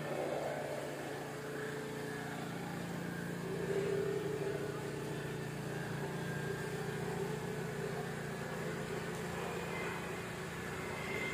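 A motor engine running steadily, swelling a little about four seconds in.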